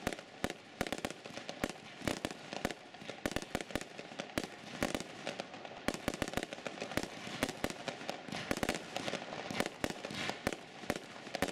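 Aerial fireworks display: a rapid, unbroken volley of sharp bangs from shots launching and bursting, several a second.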